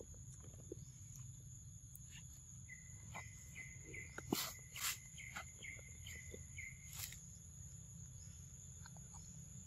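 Forest ambience: insects keep up a steady high-pitched drone on two pitches. A bird gives a run of about ten quick repeated chirps through the middle. A couple of sharp clicks near the middle are the loudest sounds.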